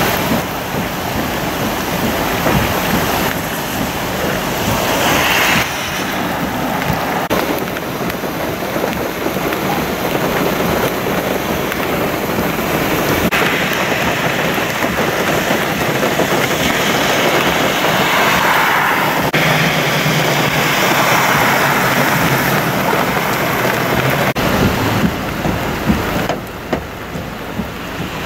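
Torrential rain pouring down on pavement and standing water, with runoff rushing into a flooded storm drain. Midway, a car's tyres swish and splash through a flooded street, and the rain noise changes in level at each cut.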